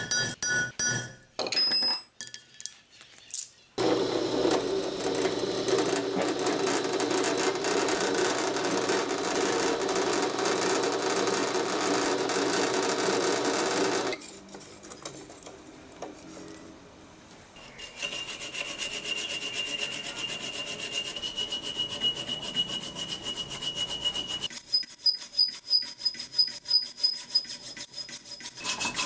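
A few quick taps of a hammer on a punch, then a drill bit grinding steadily through a small steel plate for about ten seconds. After a pause, a hand file rasps back and forth over steel in quick strokes, with a thin high ring from the metal.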